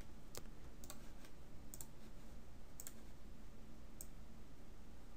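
A computer mouse clicking now and then, about five separate clicks over a few seconds, with a faint steady low hum underneath.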